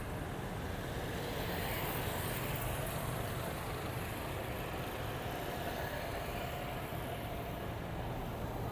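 Steady city traffic: the hum of motorbikes and cars going by on the street.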